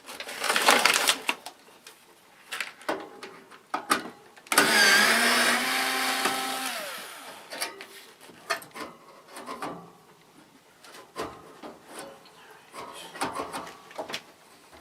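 Screws being taken out of a metal air-conditioner case with a power driver: scattered clicks and knocks of tools and metal, a short burst of noise, then the driver's motor whirring for about three seconds before its pitch drops as it stops.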